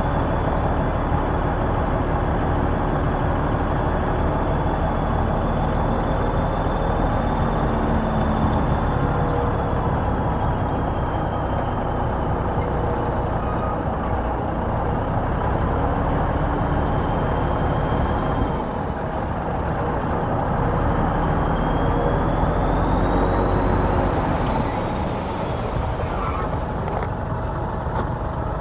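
Komatsu D65EX bulldozer's diesel engine working under load, with a faint high whine that drifts up and down in pitch. The engine note dips briefly a little past halfway and eases off near the end.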